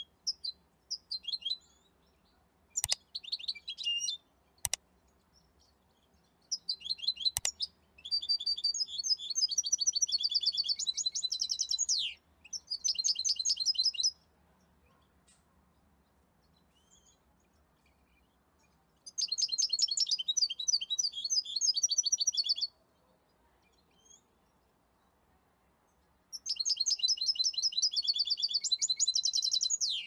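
European goldfinch singing: bursts of fast, high twittering song lasting a few seconds each, with single chirps in the gaps. Three sharp clicks in the first eight seconds.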